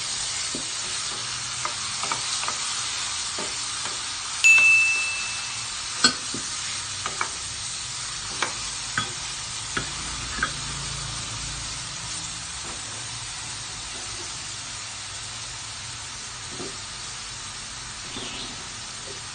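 Chopped tomatoes, onion, garlic and ginger sizzling in margarine in a stainless steel pot over medium heat, with scattered knocks of a wooden spatula stirring against the pot. A short chime sounds about four seconds in.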